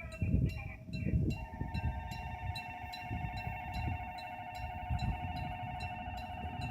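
Level-crossing warning alarm sounding, a repeating electronic bell tone struck about one and a half times a second, with a second steady alarm tone joining about a second in. An uneven low rumble runs underneath.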